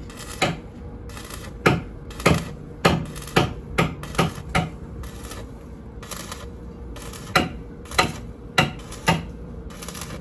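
Hammer blows struck at irregular half-second intervals: a run of about eight in the first half, then five more near the end, over a faint steady hum.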